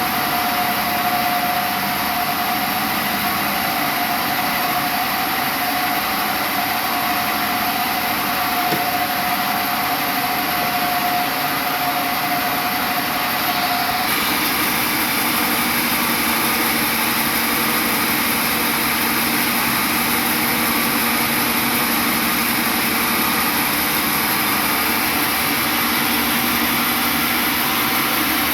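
Sawmill machinery running steadily, with a constant hum and hiss. A steady mid-pitched whine drops out about halfway through, where the sound shifts abruptly to a slightly different steady running noise.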